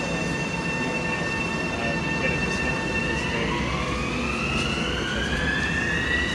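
Electric train's motors whining over a low rumble. About halfway through, a rising whine climbs steadily in pitch and levels off near the end, the sound of a train accelerating.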